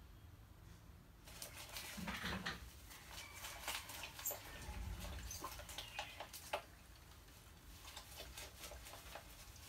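A rat caught in a water-filled glass tank trap, thrashing under a layer of floating white beads: faint splashing, with crackling clicks and rustles of the beads against the glass. The noise starts about a second in, is busiest for the next five seconds, then thins to a few scattered clicks.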